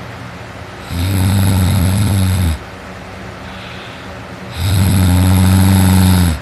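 A teenage boy sleeping on his back, snoring heavily: two long snores, each just under two seconds, about two seconds apart.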